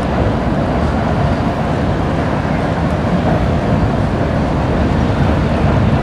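Intermodal freight train rolling across a steel truss railway bridge overhead: a loud, steady rumble without breaks.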